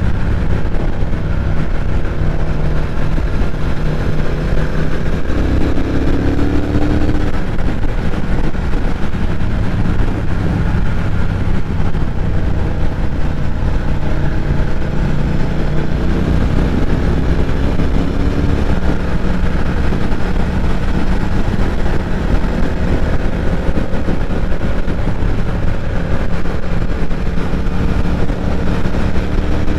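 Triumph Thruxton 1200's parallel-twin engine running at road speed under heavy wind rush on an onboard microphone, its pitch rising a few times as it accelerates.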